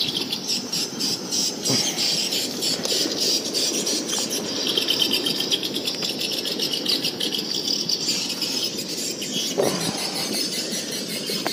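Swiftlets twittering: a dense, high-pitched chirping chorus, strongest in the middle.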